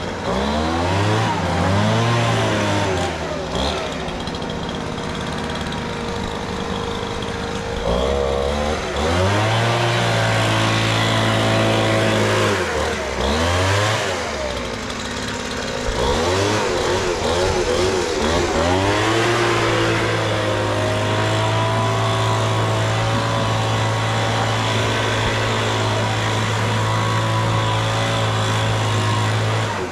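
Gas leaf blower's small engine revved up and down several times, then held at a steady high speed for the last third.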